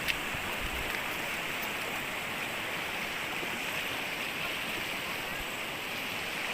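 River water flowing, a steady rushing with one brief click right at the start.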